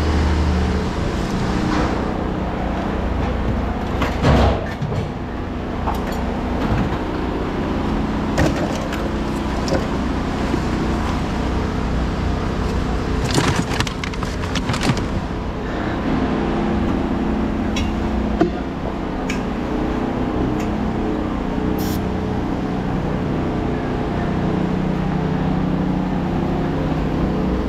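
Heavy machinery engines running steadily in a scrap yard, with occasional knocks and clanks of scrap metal being handled, a cluster of them about halfway through.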